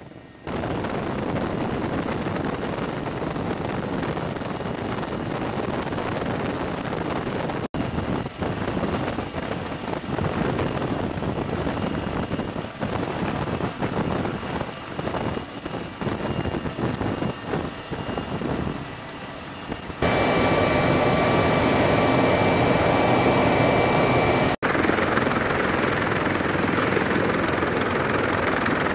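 Sikorsky CH-53E Super Stallion heavy-lift helicopter's rotors and three turboshaft engines: a loud, steady wash of rotor noise as it hovers low over water to dip its water bucket. The sound jumps at several edits, and the loudest stretch, about two-thirds through, carries a high steady turbine whine.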